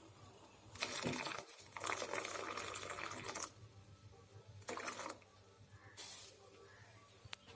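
Milk poured into a pot of ginger and black-pepper decoction on the stove, in several short pours: one about a second in, a longer one of about a second and a half, and two brief ones later.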